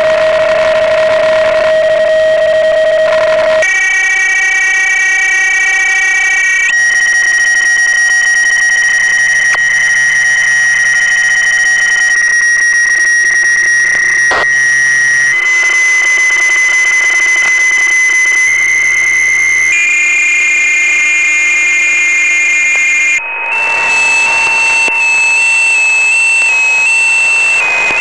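Shortwave receiver audio from a Yaesu FT-847 on the 20-metre digital-mode segment: several steady PSK31 and RTTY data tones at once, the whole set changing abruptly every few seconds as the skimmer retunes the radio. In the last few seconds RTTY tones switch rapidly back and forth between two pitches.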